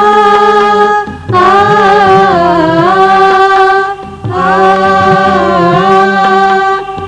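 A woman singing a Gujarati devotional song in long held notes with sliding ornaments, with a short break about a second in and another about four seconds in.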